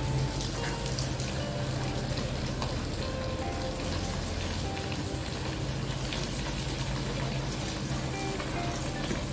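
Breaded nuggets deep-frying in hot oil in a wok: a steady crackling sizzle with scattered small pops, over soft background music.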